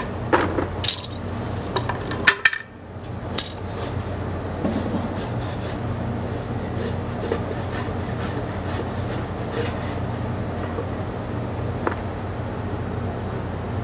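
Hand tools working the wooden steps of a ship's embarkation ladder: a few sharp knocks near the start, then a run of even rubbing strokes, about two a second, over a steady low hum from the ship's machinery.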